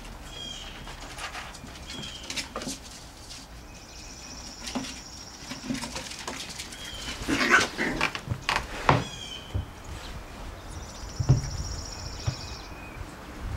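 Havanese puppies playing, with short puppy yaps and scuffling knocks. The loudest burst comes a little past halfway, and another sharp one near the end.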